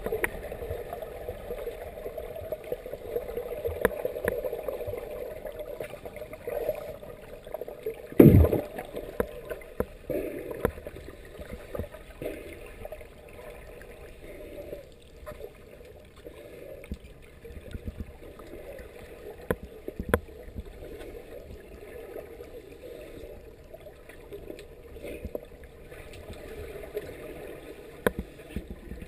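Muffled underwater sound of scuba divers' regulators venting bubbles, a steady low bubbling and gurgling with scattered small clicks. One loud low thump about eight seconds in.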